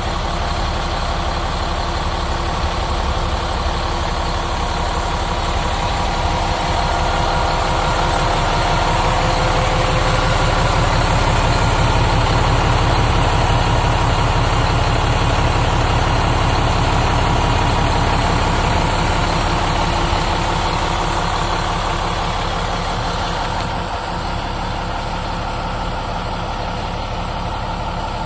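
Cummins ISM 10.8-litre inline-six diesel in a dump truck idling steadily. It grows a little louder through the middle and eases back slightly near the end.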